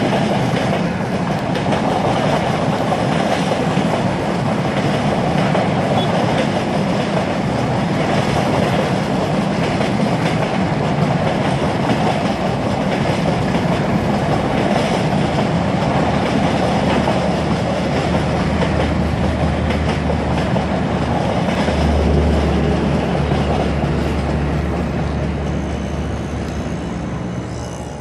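Passenger coaches of an express train rolling past, a steady rumble with the clatter of wheels over rail joints. A low hum swells in near the end, and the sound fades out at the very end.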